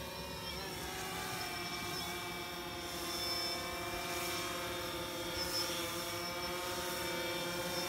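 DJI Phantom 3 SE quadcopter drone hovering, its propellers giving a steady whine of several tones that shift slightly in pitch now and then.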